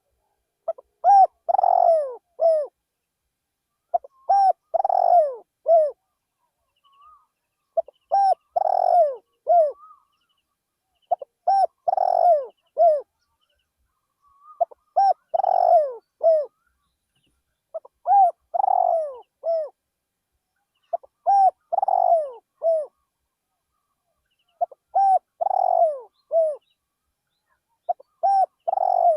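Spotted dove cooing: a three-part coo phrase, a short note, a longer louder note and a short closing note, repeated about every three and a half seconds, nine times.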